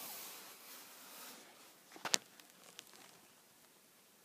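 Handling noise: a soft rustling hiss that fades over the first second or so, then a single sharp click about two seconds in, followed by a few faint ticks.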